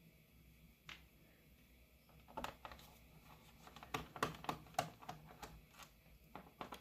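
Faint, scattered clicks and taps of small tools on the plastic case of a Lenovo IdeaPad 320-15IKB laptop, most of them in the second half.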